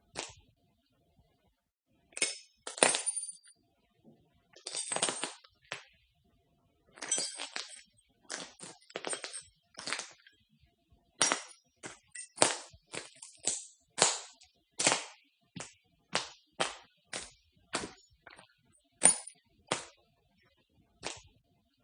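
Footsteps crunching on broken glass: separate steps, each a short crackling crunch of glass shards. The pace is uneven at first, with one longer grinding crunch about five seconds in, then settles into a steadier walk of roughly two steps a second through the second half.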